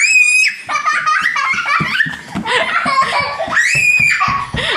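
A young child squealing and laughing during play, with two high-pitched shrieks, one at the start and one about three and a half seconds in, amid laughter.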